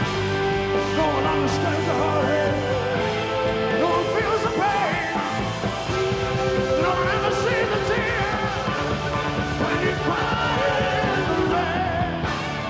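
Hard rock band playing live, an instrumental passage of a slow blues-rock song. A lead line of held, bending notes runs over bass and drums.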